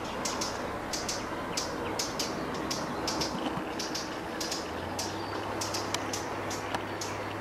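Small birds chirping in short, high notes, irregular at about two to three a second, over a steady wash of outdoor noise; a low steady hum comes in about two-thirds of the way through.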